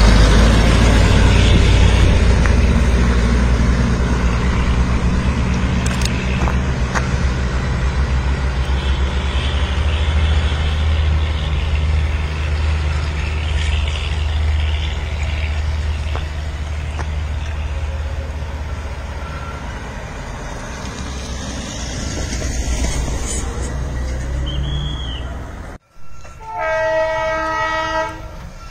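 Heavy low engine rumble of a Darjeeling Himalayan Railway narrow-gauge toy train, mixed with a truck passing close by, slowly fading as they move off. Near the end, after a brief cut, a horn sounds a steady chord for about two seconds.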